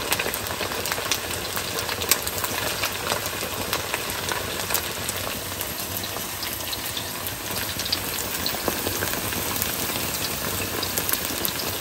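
Panko-breaded chicken tenders deep-frying in hot oil in a stainless steel wok: a steady sizzle dotted with many small pops and crackles.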